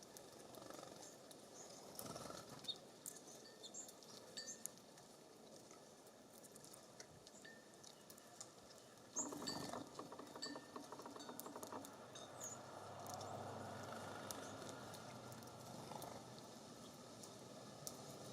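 Faint sounds of small songbirds at a feeder: scattered short chirps and clicks, with a brief rattling burst of rapid ticks about nine seconds in.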